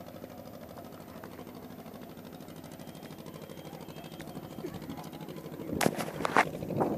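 An engine running steadily at low speed, a low pulsing hum. About six seconds in, a few sharp knocks of the phone being handled.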